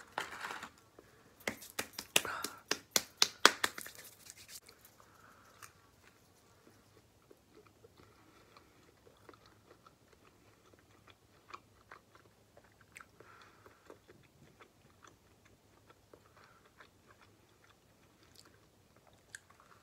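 A person chewing McDonald's food close to the microphone. A quick run of sharp crackling clicks fills the first four seconds or so, then only soft, sparse chewing sounds follow.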